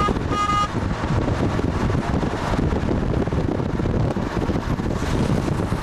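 Steady rumbling wind and road noise from a moving vehicle, with a short horn toot in the first second.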